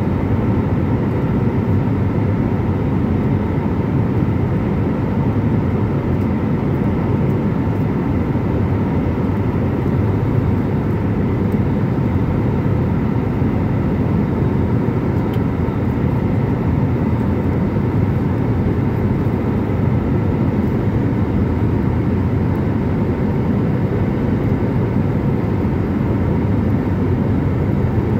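Steady cabin noise of a jet airliner climbing after takeoff: an even rumble of the underwing turbofan engine and rushing air, with a faint steady whine above it, heard from inside the cabin at a window seat over the wing.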